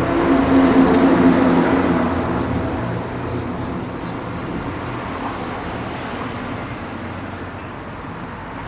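Road traffic: a motor vehicle engine passing, loudest over the first two seconds, then fading into steady background traffic noise.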